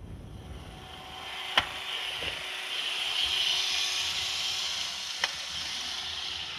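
iRobot Roomba robot vacuum running, a steady hissing brush-and-suction noise that swells about a second and a half in, with two sharp clicks.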